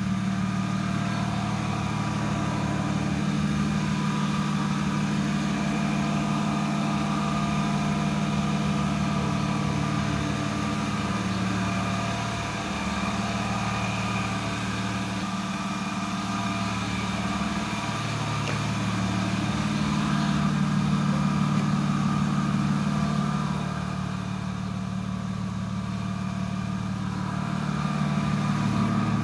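BMW 323i E36's 2.5-litre M52 straight-six idling while warming up, the idle wavering slightly now and then.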